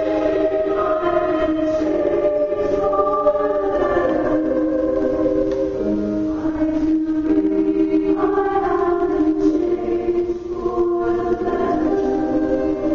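Music with singing voices, sung in long held notes that move slowly from pitch to pitch.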